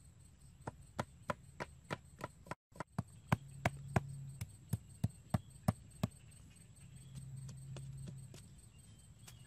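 Wooden stake being driven into packed dirt by blows from a piece of wood: sharp wooden knocks, about three a second, with a brief break about a quarter of the way in. The knocks grow lighter and sparser in the second half.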